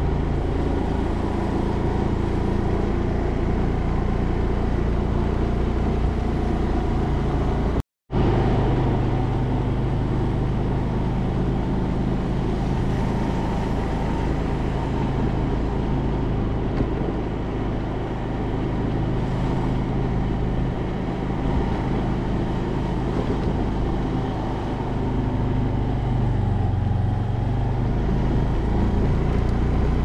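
Car engine and tyre noise as the car drives slowly along a narrow paved road, with a steady low engine hum. The sound cuts out for a moment about eight seconds in.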